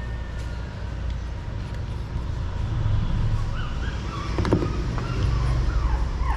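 Low steady rumble of passing road traffic, with a quick cluster of clicks about four and a half seconds in and a few short high squeaks in the second half.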